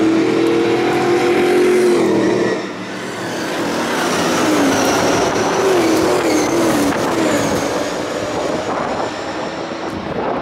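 Late Model V8 stock car engines running hard around an oval. A pack of cars races past, their engine pitch wavering up and down, with a brief dip in loudness about two and a half seconds in.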